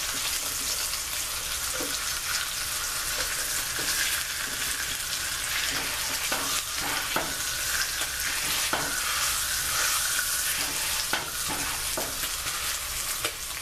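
Pork chops sizzling steadily as they brown in the fat left after their cooking water has boiled off, with a fork now and then clicking and scraping against the skillet as the chops are moved.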